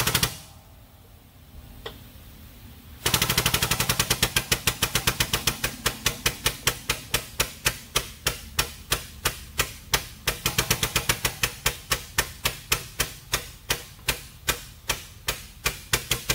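Pneumatic pump of a 20-ton air/hydraulic bottle jack chattering as it drives a shop press, pressing a wheel bearing into its knuckle. The rapid clicking pauses for about three seconds, restarts at about five strokes a second, and gradually slows to about three a second as the press loads up.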